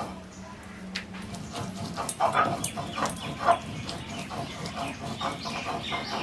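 Short animal calls, several sharp ones between about two and three and a half seconds in, over scattered clicks.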